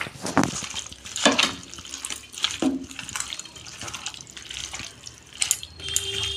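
Wet, squelching sounds of chicken gizzards and liver being mixed by hand with yogurt, spices and mustard oil, in irregular strokes.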